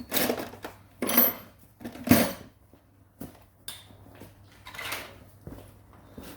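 A handful of separate knocks and clatters as hard objects are handled and set down, the loudest about two seconds in.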